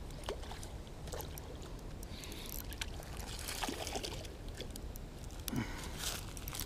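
A hooked flathead splashing at the water's surface in several short bursts as it is held close in at the bank, with small clicks and rustles of line handling.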